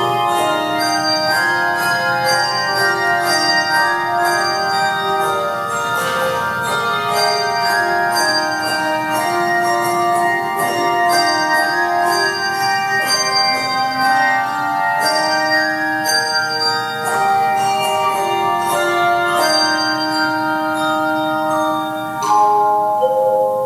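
Instrumental music led by ringing, bell-like struck notes playing a melody, each note sustaining and overlapping the next.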